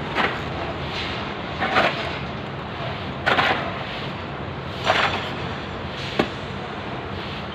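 Repeated strikes of a hand tool in construction work, about every second and a half, five in all, over a steady background hum.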